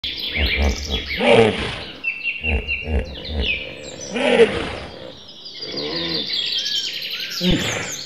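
Birds chirping, over a series of low animal calls that rise and fall in pitch with a pulsing rumble beneath, repeating every second or two.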